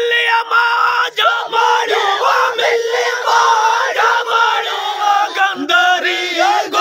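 A group of Sindhi raagi faqeers singing a kafi together, loud and without instruments, their voices weaving over one long held note.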